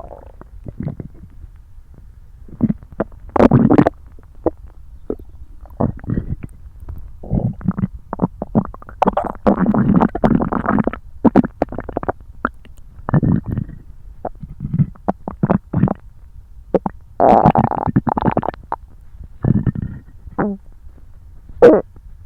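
A human stomach gurgling and rumbling loudly after a meal eaten following a long gap without food. It comes as an irregular run of gurgles, some short and sharp, some drawn out over a second or two, with the longest stretches about ten and seventeen seconds in.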